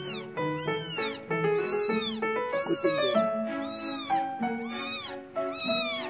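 A two-day-old newborn kitten mewing shrilly while held for a claw trim, about eight short cries in quick succession, each rising and falling in pitch. Background music plays underneath.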